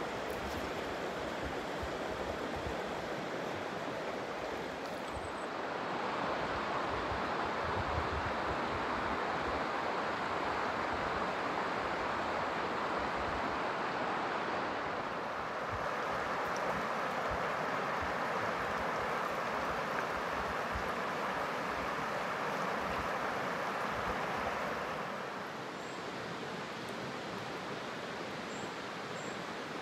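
A shallow, rocky creek flowing and rippling over stones: a steady rush of water that shifts in loudness and tone a few times, about five, fifteen and twenty-five seconds in.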